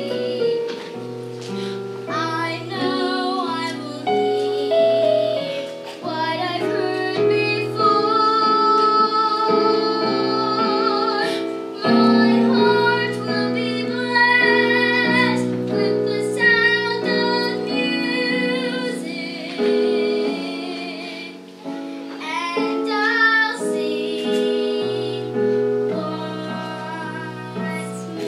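A young girl singing a solo song over instrumental accompaniment, her voice wavering with vibrato on held notes.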